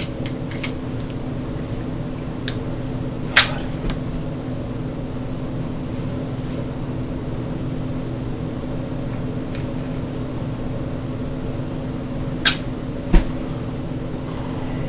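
Steady low hum, with a few sharp clicks and taps of small airsoft rifle parts being handled and fitted together: one about three seconds in and two close together near the end.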